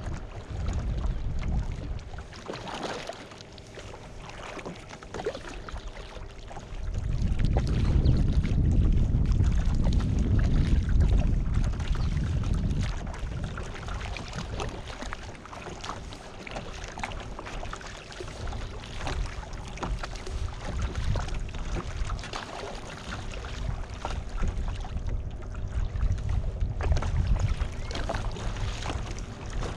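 Kayak moving on open water: water lapping and splashing along the hull with paddle-stroke splashes, and wind buffeting the bow-mounted camera's microphone in a low rumble, heaviest from about seven to thirteen seconds in.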